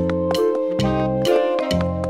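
Upbeat background music with a bouncing bass line that changes note about twice a second and a light percussive beat.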